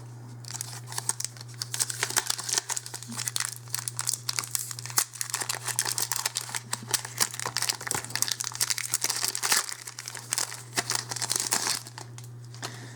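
A Magic: The Gathering booster pack wrapper crinkling and tearing as it is opened by hand, with dense crackling that stops about a second before the end. A steady low hum sits underneath.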